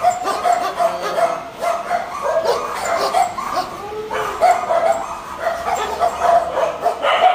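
Dozens of dogs barking and yelping at once, many short calls overlapping without a break.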